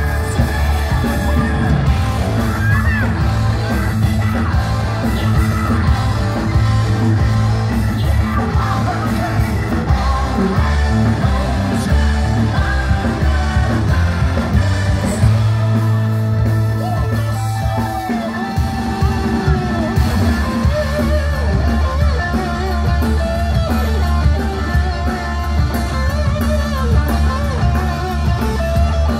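Live hard-rock band playing at full volume: drum kit, distorted electric guitar and bass under a sung lead vocal, recorded from the audience in a concert hall.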